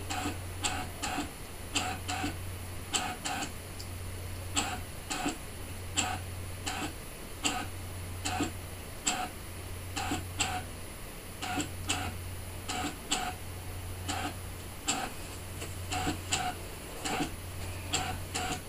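Brother ScanNCut SDX1200 cutting machine drawing with a pen: a low motor hum as the head and mat move, broken by short pauses every second or two, and sharp clicks one or two a second as the pen head lifts and lowers between strokes.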